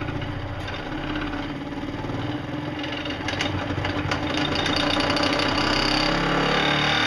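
Electric motor spinning a heavy record up to speed, its running sound growing steadily louder, with rattling clicks about halfway through. The record is wobbling as it speeds up: the start of a death wobble from a loose record.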